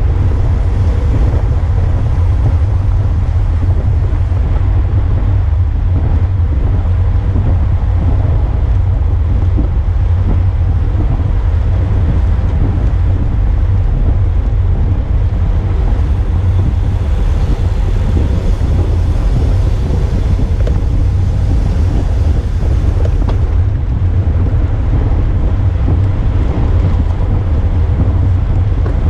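Wind buffeting the microphone of a handlebar-mounted camera on a road bike moving at race speed: a loud, steady low rumble.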